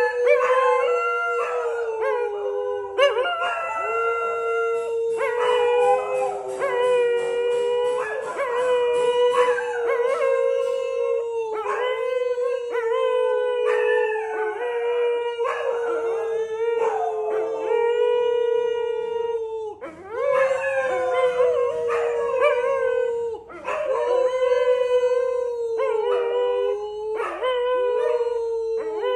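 A dog howling in long, wavering drawn-out notes, one after another, with only brief breaks.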